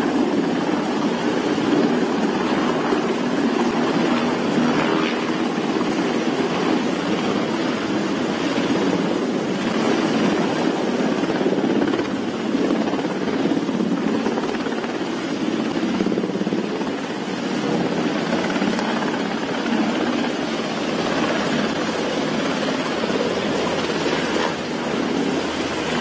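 Seahawk helicopter hovering close by during a vertical replenishment at sea. Its rotors and turbines make a loud, steady din, mixed with wind and sea noise.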